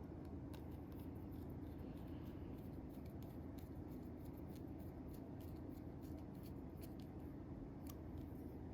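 Faint, irregular small clicks and taps of metal parts being handled and fitted together while reassembling a SOG Terminus XR folding knife, over a steady low hum.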